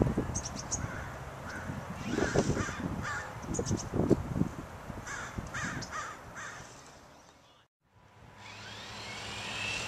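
Birds calling outdoors in repeated short calls that come in clusters and fade away, then a brief sudden drop to silence.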